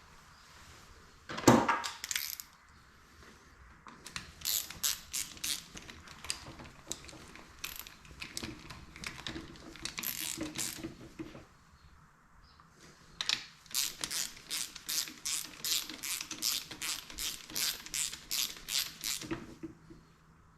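Hand ratchet clicking in quick runs as bolts are run down on the shift drum collar of a Yamaha YZ125 engine case, at about three clicks a second in the longer run near the end. A single loud clank of metal comes about a second and a half in.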